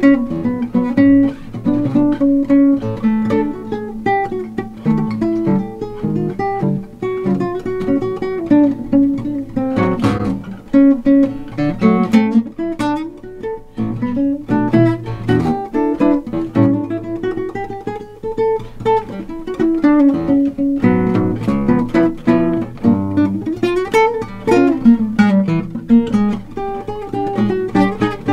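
Solo 8-string nylon-string guitar played fingerstyle, chord-melody: sustained chords under a moving melody line, with a few sharper, fuller chord attacks.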